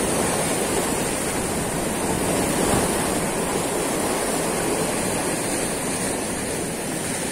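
Sea surf washing over and around shoreline rocks, a steady rushing of breaking waves.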